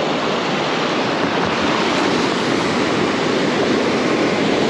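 Ocean surf breaking and washing on the shore, a steady rushing noise.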